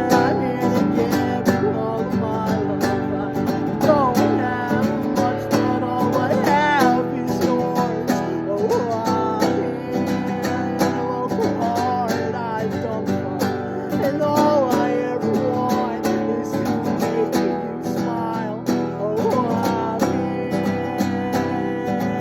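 Acoustic guitar music: strummed chords with a melody line over them that slides and wavers in pitch.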